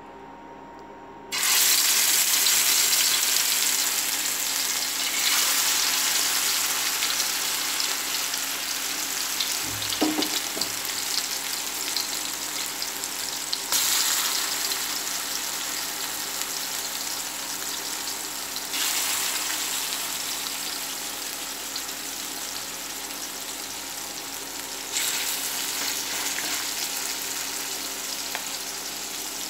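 Marinated chicken pieces sizzling in hot oil in a frying pan. The sizzle starts suddenly about a second in as the first pieces go in, then flares up again four more times as further pieces are added, easing off slowly in between. There is a light knock about ten seconds in.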